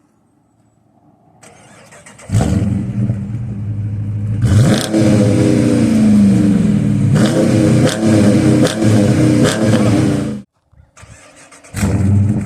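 2022 Dodge Charger R/T's 5.7 Hemi V8 exhaust, coming in suddenly about two seconds in, then revved several times with rising and falling pitch. The sound cuts off abruptly about two seconds before the end and comes back just before it ends.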